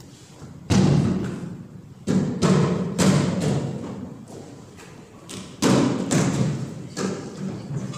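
A series of about half a dozen heavy thuds, coming in irregular clusters, each dying away over about half a second to a second in the hall.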